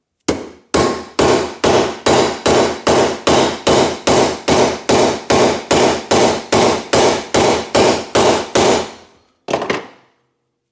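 Steady hand-hammer blows on metal, about two and a half a second, each with a short ring, driving a stuck, bent pin out of a Volvo 142 door hinge. After a brief pause near the end there is a last quick pair of blows.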